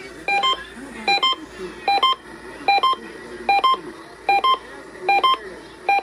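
Repeating electronic alert beeps through a radio's speaker, about eight of them a little more than one a second, each a quick pair of pitches. They come just ahead of an Emergency Alert System AMBER Alert voice message.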